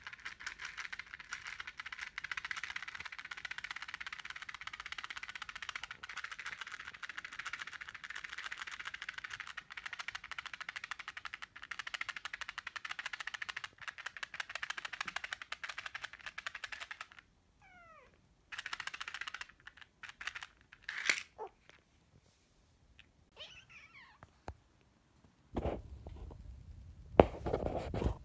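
Young kittens mewing: several high, thin mews that slide down in pitch, scattered through the second half, after a long stretch of dense, fine rustling.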